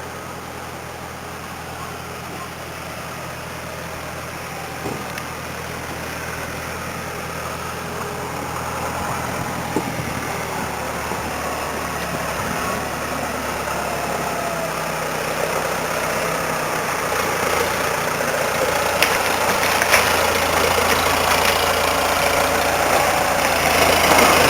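A motor vehicle's engine running with a steady low hum, under a rushing noise that grows gradually louder.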